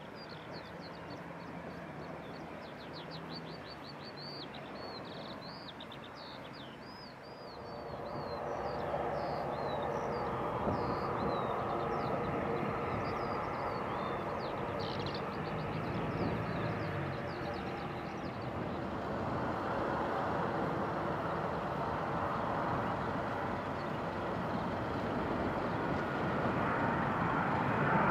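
Small birds chirping in rapid runs of short falling notes over a faint hum. About seven seconds in, a twin-engine turboprop's steady propeller drone swells up and holds, while the chirping fades out.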